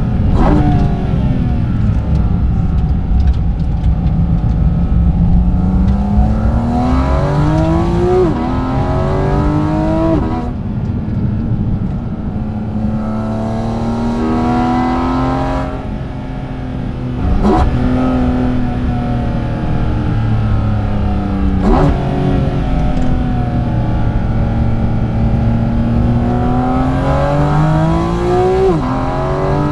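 Porsche GT4 RS's naturally aspirated 4.0-litre flat-six pulling up through the revs several times. Each climb ends in a sudden drop in pitch as it shifts up, with short sharp throttle blips between, loud with carbon-airbox intake noise.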